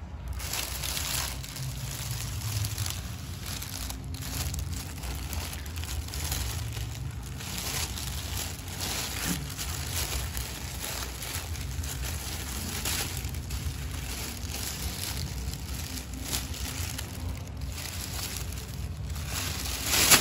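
Thin clear plastic bag crinkling and rustling in irregular bursts as a kitten moves about inside it and a hand presses on it. The loudest rustle comes near the end, over a steady low hum.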